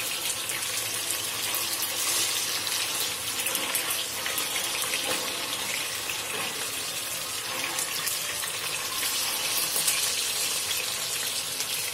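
Skinless longganisa sausages sizzling in hot oil in a frying pan: a steady hiss with fine crackling.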